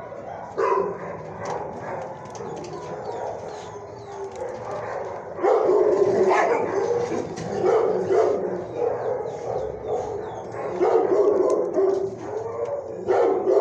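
Dogs barking and yipping in an animal shelter's kennels: a continuous din that swells into louder bursts several times.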